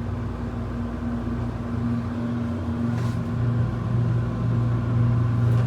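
Steady low hum of a 1973 Dover hydraulic elevator in operation, with a higher tone in it that drops out about halfway through.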